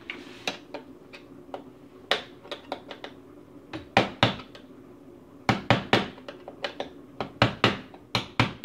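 Hammer striking a punch held on a dishwasher's metal mounting bracket, driving its tab down into place: a run of sharp taps in irregular groups, heavier and closer together from about halfway in.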